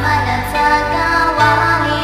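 Music from a Shan-language metta (loving-kindness) song: sustained accompaniment notes over a steady bass line, the chord and bass changing about one and a half seconds in.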